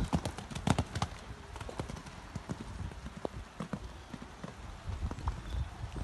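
Hoofbeats of a horse cantering on sand arena footing, sharp and loud in the first second, then fainter as the horse moves away.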